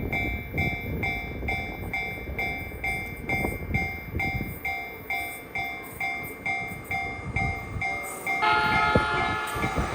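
Japanese level-crossing warning bell ringing in a steady, repeating two-note clang about twice a second, warning of an approaching train. Near the end the clanging stops and a steady, held chord of tones takes over.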